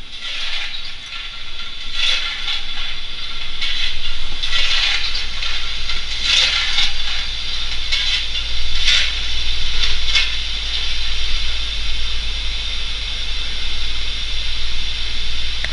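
Sound decoder of a Minitrix N-scale class 01 150 model steam locomotive playing a steady steam hiss, with a louder puff every couple of seconds.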